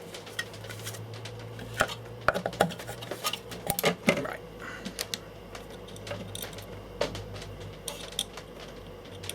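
Irregular clicks and light clatter of tools and small parts being handled, with a few louder knocks about two to four seconds in.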